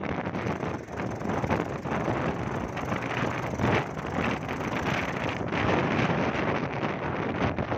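Wind buffeting the microphone over the road noise of a moving vehicle: a rough, fluctuating rush with no steady engine note.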